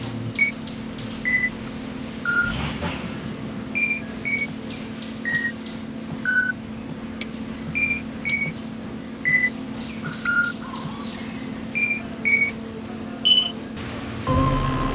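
Background music: a sparse run of short electronic beeps at changing pitches, roughly one a second, over a steady low drone. A louder, fuller passage comes in near the end.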